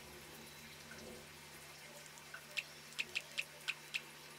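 Plastic keys of a Hammer flip phone clicking under a thumb: about six quick presses in the second half, over a faint steady hum.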